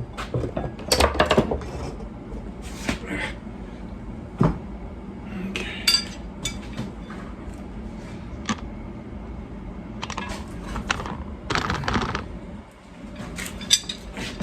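Metal tools clinking, knocking and scraping against a steel wheel rim in irregular bursts as a lawn tractor's rear tire is worked onto it by hand.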